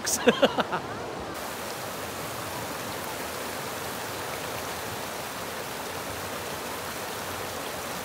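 A fast-flowing river rushing over shallow rock rapids: a steady, even rush of water.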